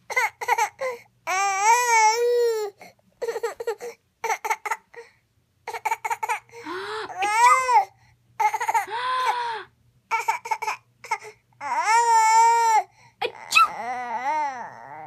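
A seven-month-old baby vocalizing in a string of high-pitched, drawn-out calls that rise and fall in pitch, part fussy crying and part babbling.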